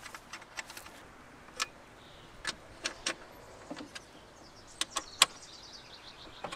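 Scattered sharp clicks and taps of engine-bay parts being handled by hand, the loudest about five seconds in. A bird sings faintly near the end.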